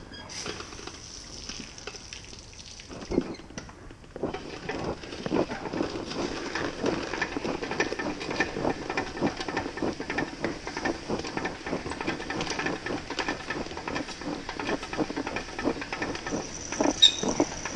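Garden hose running with its spray nozzle open: a steady hiss of water with a dense spatter, breaking off briefly about two to four seconds in and then running on. A sharp click sounds near the end.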